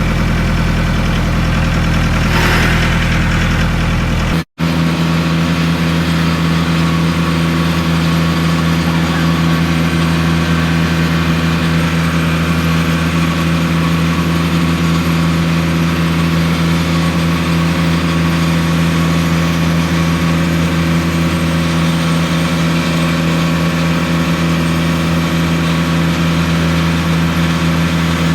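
An engine running steadily at a constant speed, with a low, even hum. It cuts out for an instant about four and a half seconds in, then carries on unchanged.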